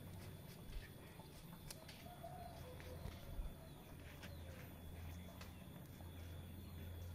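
Faint rural outdoor ambience: a low steady hum with soft, distant bird calls, one drawn-out call around the middle, and a few light clicks.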